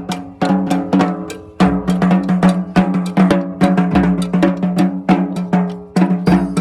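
Community street brass band playing: drums and percussion beat a busy rhythm under sustained horn notes. The band drops back briefly about a second and a half in, then comes back in together.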